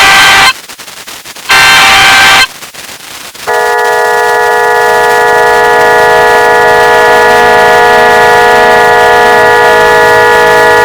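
Loud Emergency Alert System tones in a 'G Major' edit, with pitch-shifted copies layered on top of each other. Two harsh header data bursts of about a second each come with a second's pause between them. About three and a half seconds in, the steady attention tone starts, held as a dense chord of many pitches.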